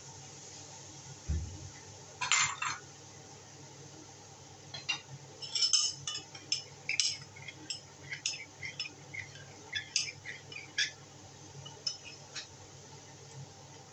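A metal spoon clinking again and again against a small ceramic bowl as something is stirred in it, over a steady low hiss. Earlier there is a low thump, then a brief scrape about two seconds in.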